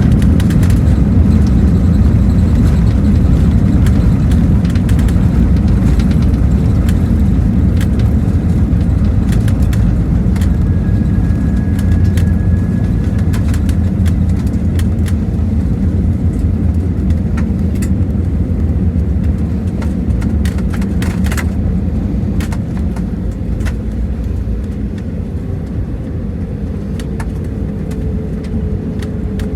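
Airbus A320neo cabin during the landing rollout: a loud, deep rumble from the wheels on the runway and the engines, slowly dying down as the aircraft slows, with scattered light rattles and clicks from the cabin.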